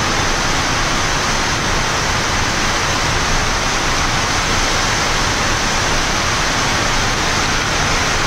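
Steady rushing hiss of airflow and equipment noise on a Boeing 787 flight deck during descent, even and unchanging.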